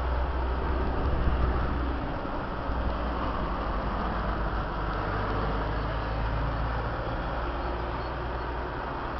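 Steady outdoor background noise: a continuous low rumble under an even hiss, with the rumble heavier for the first couple of seconds.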